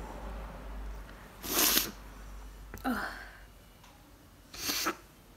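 A woman sneezing twice, about three seconds apart, with a short vocal sound falling in pitch between the two sneezes.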